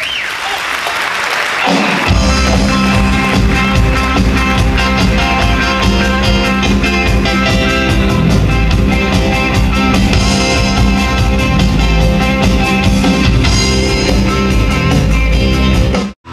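Live band music: after a rising noisy wash in the first two seconds, a full band plays over steady held bass notes and a regular beat, then cuts off abruptly near the end.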